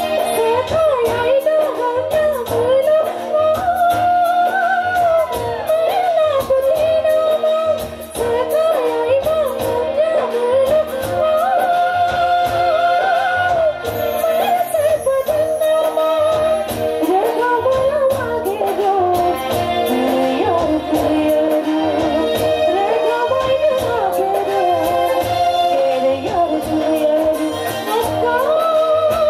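A woman singing live into a microphone through a PA system, over amplified band accompaniment with a steady beat.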